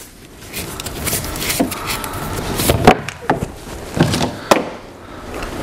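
Irregular knocks and clunks of equipment being handled: the drywall power sander and its taped-on shop-vac hose being picked up and moved, the loudest knock about three seconds in.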